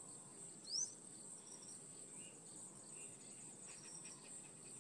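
Faint wild ambience: insects trilling steadily at a high pitch, with a short rising bird chirp just under a second in and a few faint high peeps afterwards.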